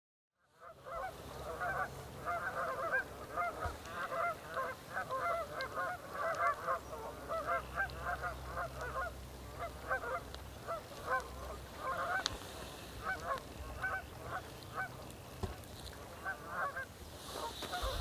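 Many geese honking: short calls, dense and overlapping at first, then thinning to scattered honks, over a low steady background rumble.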